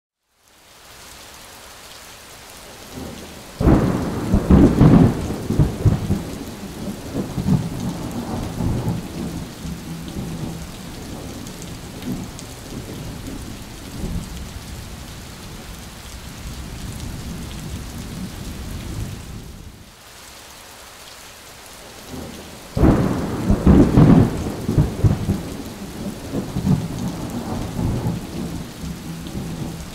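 Steady heavy rain with two claps of thunder, each breaking suddenly and rumbling away over several seconds, about four seconds in and again some nineteen seconds later.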